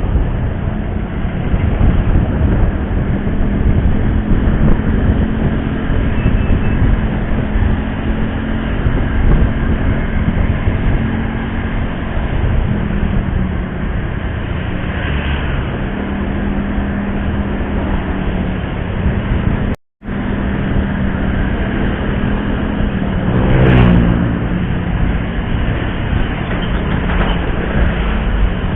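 Motorcycle engine running steadily under way, with road, wind and traffic noise. The sound cuts out for an instant about twenty seconds in, and a short rising tone passes a few seconds later.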